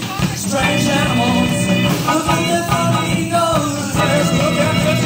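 Recorded rock-and-roll band music with a steady beat.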